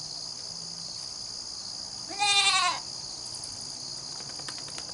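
A young goat bleats once, a wavering cry of about half a second, a little over two seconds in.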